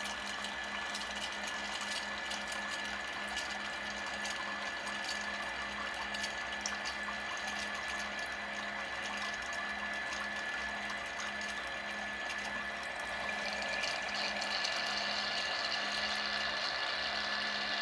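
Orenda coffee maker's pumps running during a water flush, pushing water through the brew chamber and out to the dispenser: a steady electric hum over flowing, splashing water. About 13 seconds in, the water sound turns brighter and hissier.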